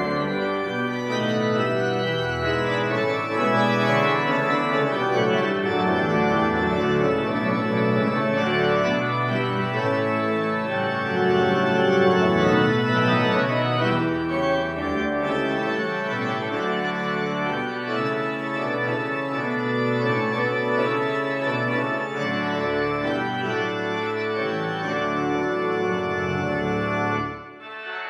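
1979 Austin pipe organ playing full, sustained chords in a flowing passage. The sound stops sharply near the end, and the church's reverberation rings on briefly.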